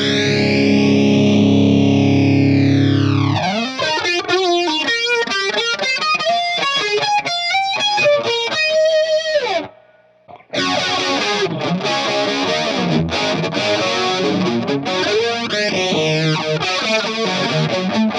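Electric guitar played through a vintage late-1970s A/DA Flanger, the flanger's sweep moving slowly up and down through the tone. It starts on a held chord with one long sweep, then moves to picked single notes, stops briefly about ten seconds in, and picks up again with more notes.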